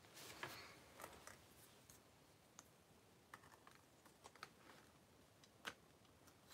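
Quiet, scattered clicks and light clatters of hard plastic parts on a Power Rangers Ptera Freeze Zord toy being handled and moved during its transformation, with one sharper click near the end.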